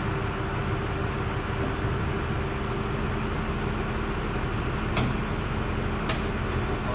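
Steady machine-like background noise with a faint low hum, broken by two sharp clicks about five and six seconds in as tools or parts are handled on the machine.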